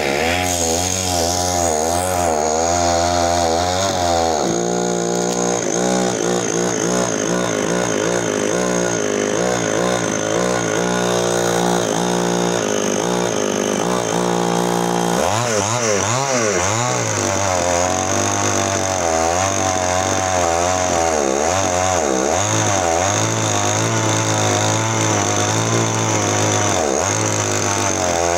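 Stihl chainsaw running while cutting into the base of an areca palm stump, its engine pitch rising and falling under load.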